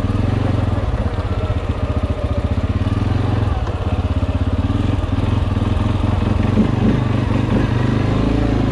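CFMoto 450L ATV engine running at fairly steady revs, its pitch wavering a little as the throttle changes.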